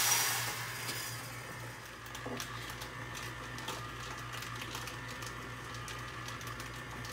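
Popcorn kernels and butter poured into a popcorn machine's kettle, a rush of sound that fades within about a second. Then the kettle's agitator motor hums steadily while the stirrer moves the kernels around with scattered light clicks.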